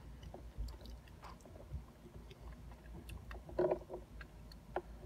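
Faint chewing and small wet mouth clicks as a mouthful of fudge is eaten, over a low steady hum.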